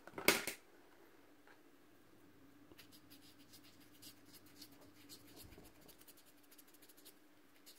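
A short hiss of isopropyl alcohol sprayed onto a piezo speaker disc, then from about three seconds in a cotton swab scrubbing the disc in quick, faint, scratchy strokes.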